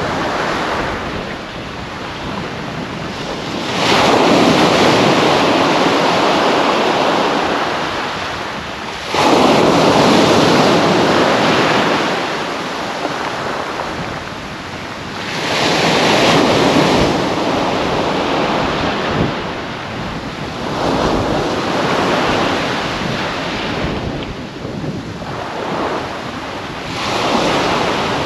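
Small waves breaking and washing up a sand and shingle beach, surging about every five to six seconds, five times in all, with wind buffeting the microphone.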